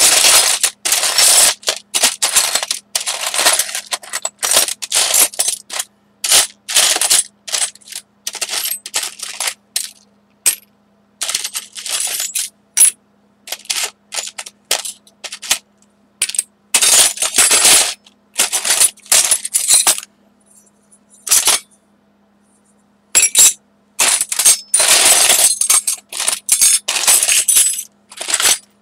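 Small craft supplies and embellishments being handled and sorted, in irregular bursts of rustling and clattering with short pauses between, over a faint steady electrical hum.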